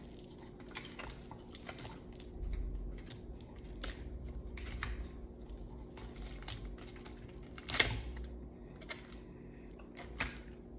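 Cooked crab legs' shells being cracked and snapped apart by hand: an irregular run of sharp cracks and clicks, the loudest about eight seconds in.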